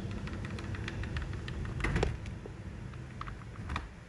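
Light clicks and taps of a thin steel lure wire being set down across a ceramic bowl of plastic beads, a few louder ones around the middle and near the end. Under them runs a low steady hum that drops away near the end.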